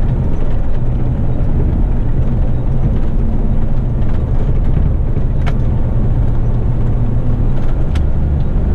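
Heavy rigid truck under way: a steady diesel engine drone and road noise, with two faint clicks past the middle.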